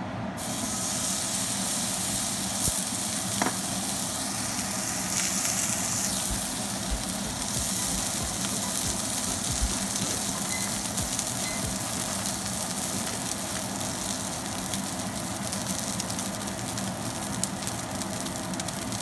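Thick A5 Wagyu strip steak searing in a hot cast-iron skillet. A steady sizzle with small pops starts as the meat goes into the pan, as its fat renders onto the iron.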